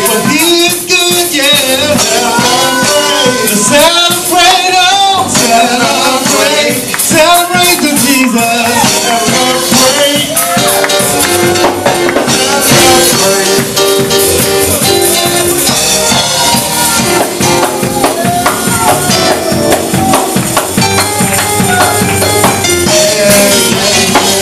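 Loud, fast live gospel music of a church praise break: tambourines and drums driving a steady beat under singing and shouting voices, with held chords in the middle.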